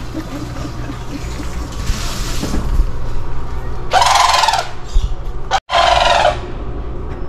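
Brolga calling: two loud calls, each well under a second long, about two seconds into the second half, over a steady low background rumble.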